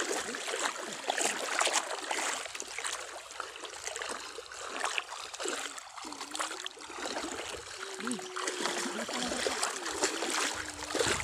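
Water splashing and sloshing irregularly as people wade through a shallow pond while fishing with a net.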